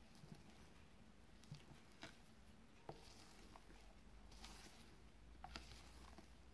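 Faint soft taps and wet swishes of a spatula folding thick sponge-cake batter in a glass bowl: a few scattered light ticks over low room noise.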